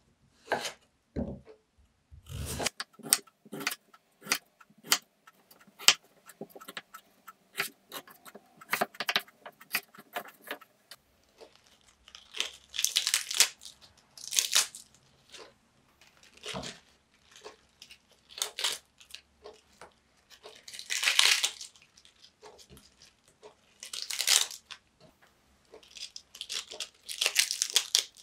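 Kitchen food-preparation sounds: a run of sharp, irregular knocks and taps for about ten seconds, then a series of short rustling bursts.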